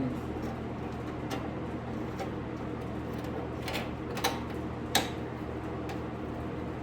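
Sheet-metal door-skin panels being handled and fitted together, giving a few light, sharp metal clicks and taps, the clearest about four and five seconds in, over a steady low hum.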